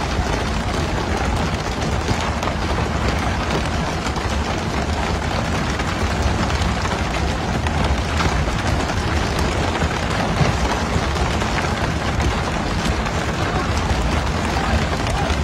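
Steady rushing noise of water spray and the sea against the boat, with a boat engine running underneath.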